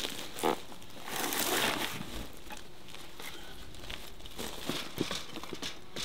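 Rustling and handling noises as a hive box is carried over bark mulch, with a sharp knock about half a second in and a longer rustle a second later.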